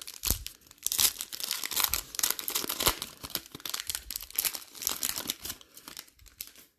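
A trading card pack's wrapper being torn open and crinkled, a dense run of crackling for about five seconds.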